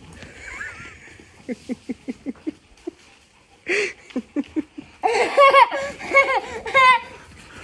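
A person laughing: short rhythmic laughs at first, then louder, higher-pitched laughter from about five seconds in.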